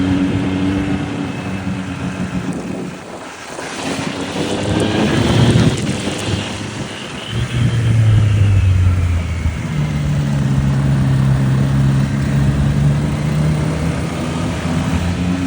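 Triumph Street Triple RS inline three-cylinder engine running. Its note rises as it revs up a few seconds in, drops back, then holds a steady drone for the rest.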